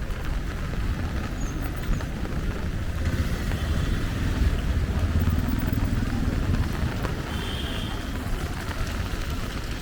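Busy city street in the rain: motorbike and car engines passing over a steady hiss of rain and wet road, with an engine swelling and fading about halfway through. Two brief high-pitched tones come about four and eight seconds in.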